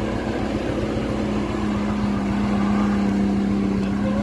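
Vehicle engine running steadily at idle, a constant low hum.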